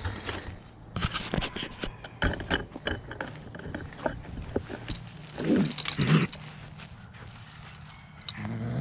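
Crunching footsteps through dry leaves, then a raccoon held by the paw in a dog-proof trap growls twice about five and six seconds in, and again near the end. It is an agitated, aggressive trapped raccoon.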